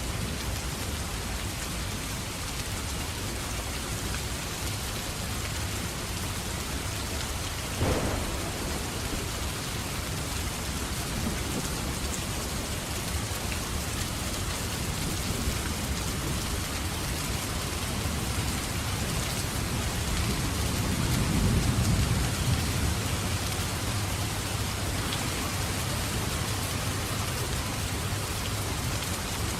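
Steady heavy rain with thunder: a sharp crack about eight seconds in, and a low rumble that swells a little past the middle.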